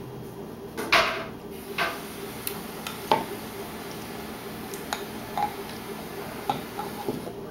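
Scattered household knocks and clinks, about six separate short hits, the loudest about a second in, over a faint steady hum.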